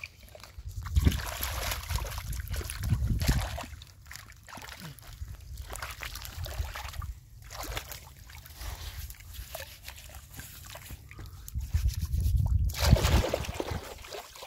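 Water sloshing and splashing in irregular bursts, loudest about one to three seconds in and again near the end.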